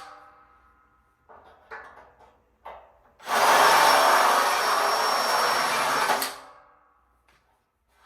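Power drill-driver running for about three seconds, about three seconds in, driving a screw into the metal bed frame, after a few short knocks of parts being handled.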